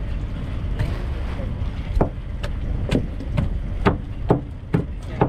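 A fishing boat's engine runs with a steady low rumble. From about two seconds in, a run of sharp knocks comes roughly twice a second.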